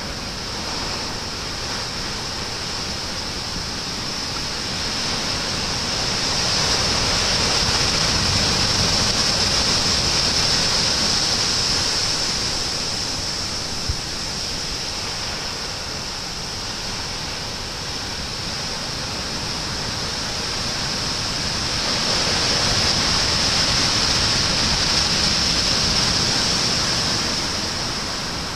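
Heavy surf whipped up by a typhoon: a continuous rush of breaking waves and wash that swells louder twice, from about five seconds in and again from about twenty-two seconds in. A single short click comes about halfway through.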